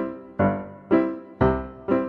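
Piano music: five chords struck about twice a second, each one ringing and dying away before the next.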